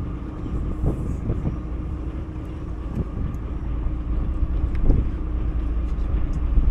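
Boat engine running steadily at idle: a low rumble under a constant hum, with wind rumbling on the microphone.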